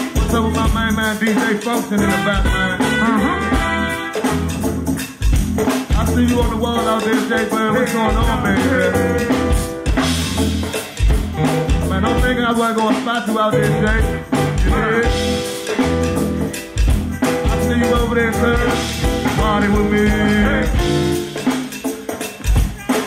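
Live band music with a drum kit beat and singing.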